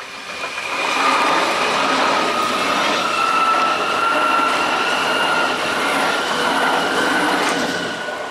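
DB class 423 S-Bahn electric multiple unit passing close by: loud rolling and wheel noise on the rails, building in the first second, with a steady whine at two pitches that rises slightly.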